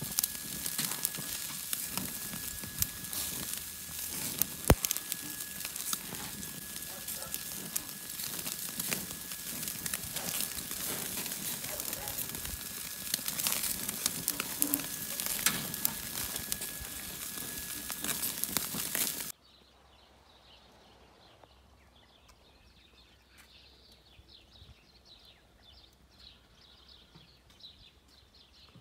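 Meat and sausages sizzling and crackling over charcoal on a grill grate, with a sharp click about five seconds in. The sizzle cuts off suddenly about two-thirds of the way through, leaving a quiet background.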